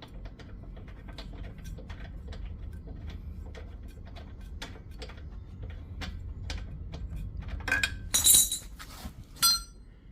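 Spark plug tool ratcheting in a run of sharp clicks, about three or four a second, as the old spark plug is worked loose from the Honda mower's engine. About eight seconds in come a few louder, ringing metallic clinks of tool and plug knocking together.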